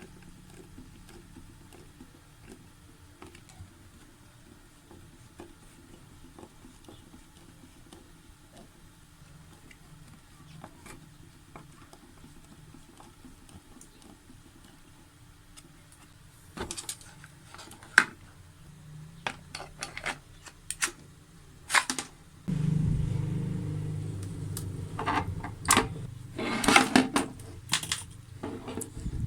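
Small hand-handled parts and screws clicking and rattling, then about 22 seconds in a small motor starts and runs steadily to the end, with more clicks and rattles over it.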